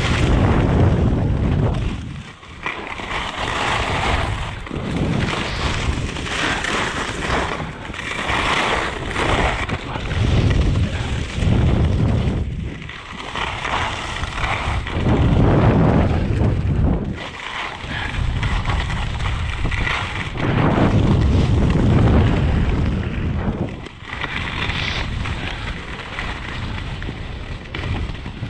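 Wind buffeting the microphone of a helmet- or body-mounted action camera at skiing speed, mixed with the hiss and scrape of skis over crusty packed snow. The noise swells and drops in surges every few seconds.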